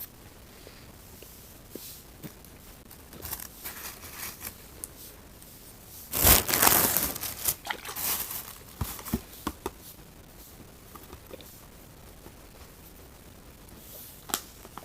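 Snack packaging being handled and opened: a wrapper crinkling and tearing in scattered crackles and clicks, with a louder rush of crinkling about six seconds in.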